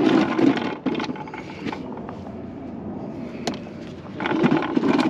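Discarded toys and other junk being handled and shifted about: scraping with a few sharp knocks.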